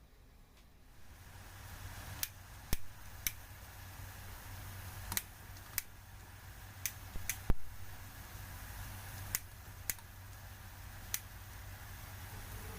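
A low steady hum comes on about a second in, with about a dozen sharp, irregular clicks and taps, the kind of small knocks made while handling kitchen utensils.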